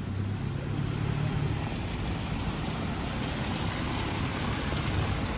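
A car engine hums low for the first second and a half, over a steady hiss of rain on the street.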